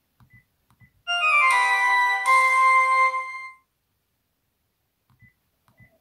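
Sharp SH900i flip phone's speaker playing one of its built-in closing ('CL') jingles: a quick upward run of synth notes into a held chord, about two and a half seconds long. Faint key clicks before and after it.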